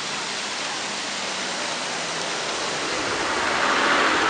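Rushing, churning water of a garbage-filled river, a steady hiss that grows louder near the end.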